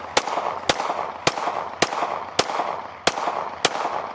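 A gun fired in a steady string of seven shots, about one every 0.6 seconds, each with a short echo.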